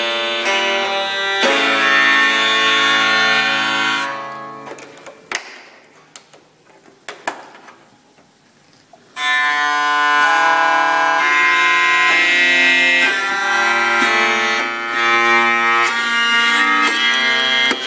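Organistrum, a keyed string instrument with a bowing wheel, playing held chords over a low drone. The sound fades away about four seconds in, leaving a few faint clicks, and the chords come back at full strength about nine seconds in.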